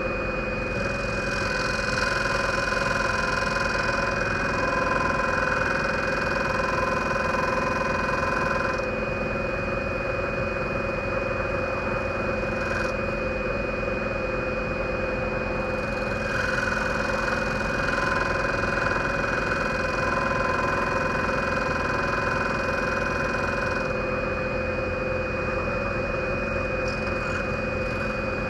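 Scroller 800 large scroll saw running steadily, its fine No. 2 blade cutting through wood. A higher note comes and goes in long stretches of several seconds.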